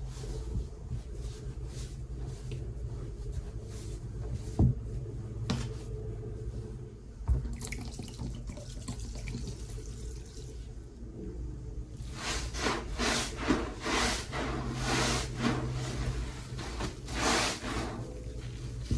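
Cleaning sponges loaded with powdery dish soap paste, rinsed under poured streams of liquid and then squeezed by hand: wet, foamy squelching in quick repeated squeezes through the last several seconds. A few light knocks come in the first seconds while the sponges are pressed into the powder.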